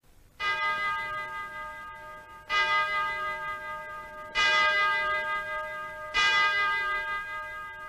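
Kremlin Spasskaya Tower clock bell striking the hour, four slow strokes about two seconds apart, each ringing out and fading: the chimes of midnight.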